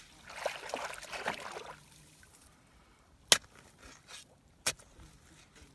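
Muddy shallow water sloshing and splashing for about two seconds as hands and legs move through it, then a few sharp knocks, the loudest about three seconds in, as a hand tool strikes the mud bank.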